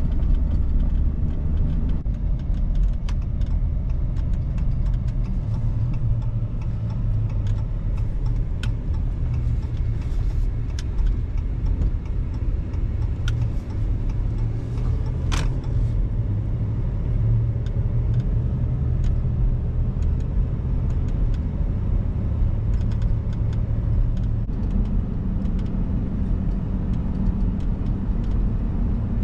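Steady road and engine rumble inside a pickup truck's cab while driving and towing a bale trailer, with scattered small rattles and clicks and one sharper click about halfway through.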